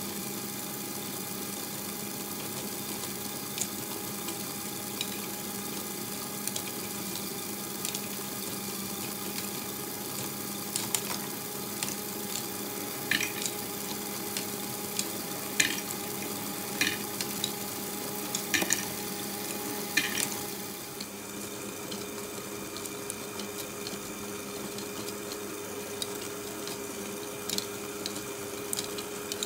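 LEGO Great Ball Contraption module running: its electric motor and gear train give a steady hum over a constant rattle of plastic parts. A run of sharp plastic clacks comes in the middle stretch, and around two-thirds through the pitch of the hum shifts.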